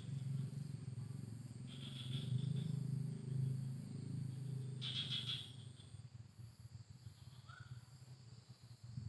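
Low rumbling handling noise with brief rustles of dry fronds, loudest for the first six seconds, as a gloved hand searches the dry vegetation. Behind it, a faint high-pitched insect chirp repeats about twice a second.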